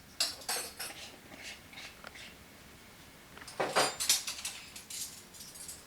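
Cutlery clinking on plates at a meal table: a scatter of sharp clicks and clatters, with a louder cluster of them about three and a half to four seconds in.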